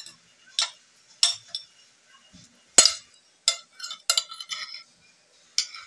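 Metal spoon and fork clinking against ceramic plates while eating: about seven separate sharp clinks, the loudest about three seconds in.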